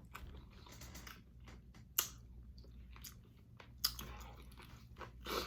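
Close-miked chewing of chicken wing meat, with soft wet mouth sounds and a few sharp clicks, the strongest about 2 s and about 4 s in.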